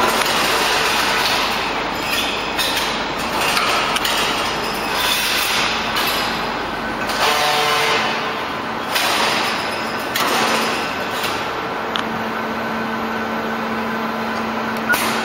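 Slit-coil packing line machinery running: a steady hum with a noisy hiss over it, a few light knocks, and a sharp click near the end.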